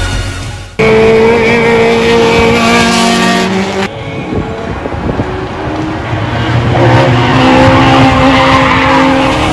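Race cars' engines at high revs on a circuit, heard from trackside. An engine note starts suddenly just under a second in and holds steady, breaks off abruptly about four seconds in, and another engine note climbs as a car comes by near the end.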